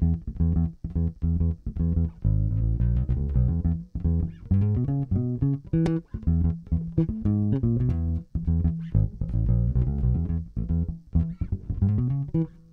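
Electric bass guitar played fingerstyle, a busy groove of short plucked notes, recorded direct through a TC Electronic SpectraDrive pedal adding light compression.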